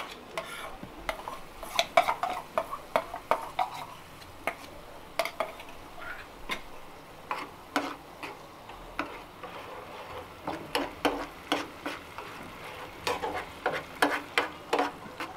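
A steel spoon stirring tomato purée in a non-stick frying pan, clicking and scraping against the metal many times, over a soft sizzle of the oil and ginger-garlic paste frying underneath.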